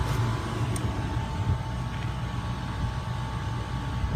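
Steady low hum of a refrigeration rack with one of its six scroll compressors running while the rack is pumped down. A thin steady tone sits above the hum.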